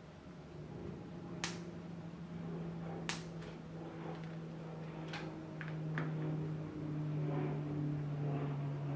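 Sharp clicks and taps as small electronic components and a circuit board are handled, over a steady low hum that grows louder toward the end.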